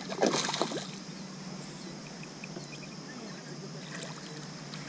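A hooked bass splashing at the water's surface in one short burst near the start, then quieter water sounds.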